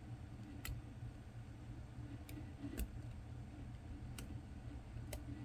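Faint, sparse clicks, about five, of a small hand tool picking and prying at the card reader and rubber seal inside a Raymarine e7 chart plotter, over a low steady hum.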